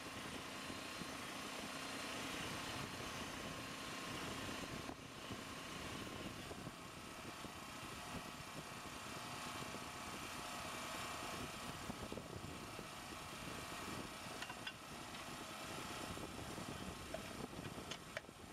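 An engine running steadily with an even drone, with a few faint sharp clicks in the later seconds.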